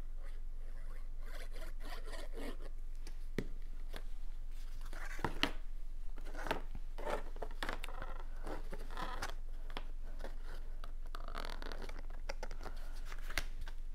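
Cardstock being handled at close range: intermittent rustling, scraping and light ticks of paper as a glued tab is folded and the card pieces are fitted together.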